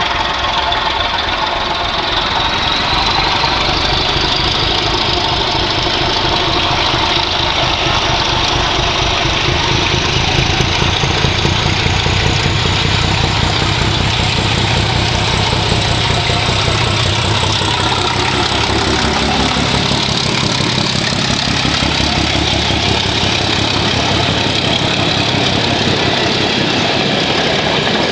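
Class 749 diesel locomotive approaching under power with a train, its engine beating heavily and a high whine climbing in pitch over the first ten seconds. About two-thirds of the way through the engine beat falls away as the locomotive passes, and the coaches roll by.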